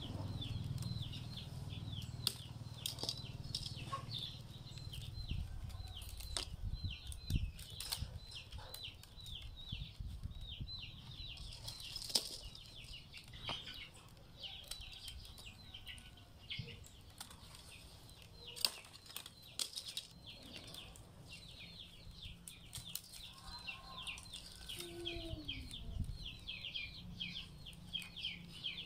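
Rattan strands rustling and clicking against each other as a basket is woven by hand, with scattered sharp clicks, over a steady high chatter of birds chirping.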